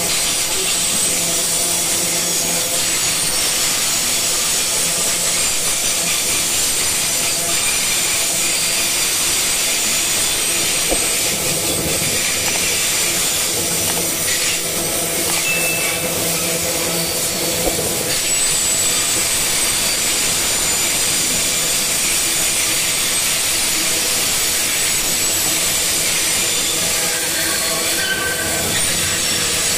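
Loaded coal wagons of a freight train rolling steadily past on the rails, the wheels giving a continuous high-pitched squeal over the rumble and rattle.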